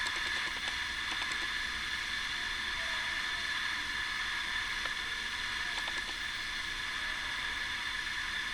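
Steady hiss of the recording's background noise, even throughout, with a few faint small clicks in the first second or so.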